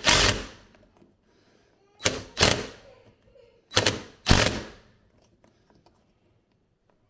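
Cordless impact driver fitted with a right-angle attachment, hammering screws in through dishwasher mounting brackets in short bursts. The bursts come in pairs: one right at the start, two about two seconds in and two more near four seconds.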